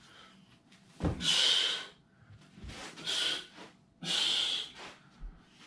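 A man breathing out hard through the nose and mouth on each effort of a solo grappling drill: three sharp, hissing exhales about a second apart, with a low thump or two of bare feet on the carpeted floor.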